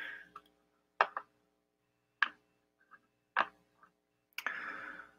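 Computer mouse clicking: three sharp single clicks about a second apart, each with a fainter click just after. A soft breath into a headset microphone comes near the end.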